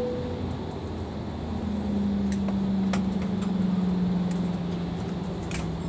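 Cabin noise of an Embraer E-Jet taxiing after landing: its turbofan engines run at low power, with a low hum that slides slowly down in pitch, and a few faint clicks.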